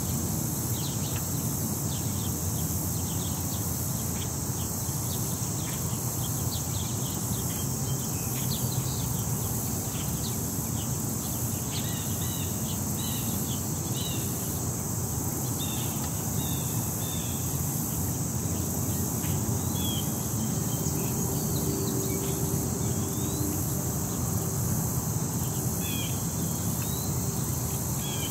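City park ambience: a steady high-pitched insect chorus, with scattered short bird chirps over a low steady rumble.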